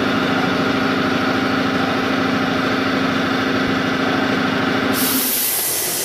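Automatic bottle labelling machine running with a steady motor hum. About five seconds in, a loud hiss starts suddenly and the hum drops away.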